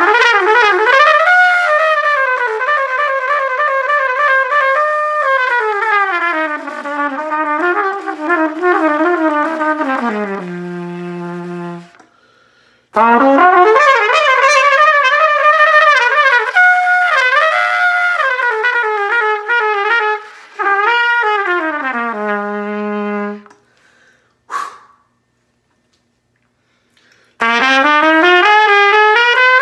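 Solo trumpet playing a melody in phrases with short pauses between them. The first two phrases step down to a low held note, and a new rising phrase begins near the end.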